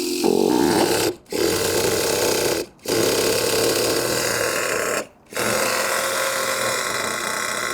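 A nitro RC truck's electric starter cranking the Traxxas T-Maxx 3.3 nitro engine, running in bursts with three short breaks, while the engine is reluctant to fire.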